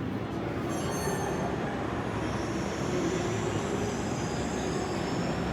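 Tram rolling on street rails with a low rumble, its wheels giving a high, thin squeal that starts about a second in and fades near the end.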